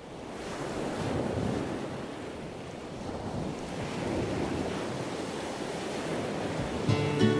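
Ocean surf washing in waves, fading in and swelling, with strummed acoustic guitar music coming in near the end.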